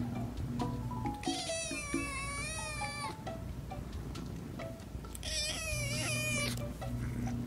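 Tabby kitten meowing: two long, high, wavering cries, the first starting about a second in and lasting nearly two seconds, the second starting about five seconds in, with background music underneath.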